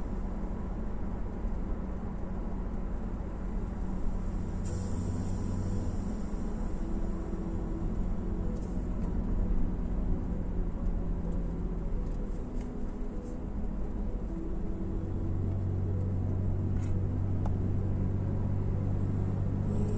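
Inside the cabin of a BMW E60 530i on the move: the 3.0-litre straight-six petrol engine hums steadily over tyre and road noise, the low engine hum growing stronger about three-quarters of the way through.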